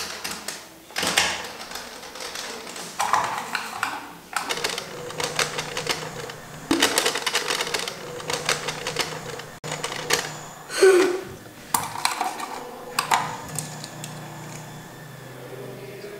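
Rapid typing: keys clacking in several bursts of a second or more, with short pauses between.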